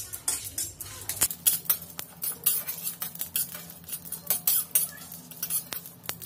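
Metal spatula scraping and clinking against a dry kadai, stirring cumin seeds and a dried red chilli as they dry-roast, in quick, irregular strokes several times a second.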